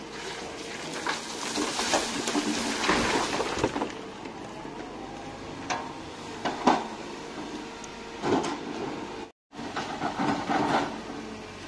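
Kobelco excavator running steadily while loading dirt and stones into a steel dump-truck body: a long rattling rush of falling earth for the first few seconds, then several sharp knocks and clatters. The sound cuts out completely for a split second about nine seconds in.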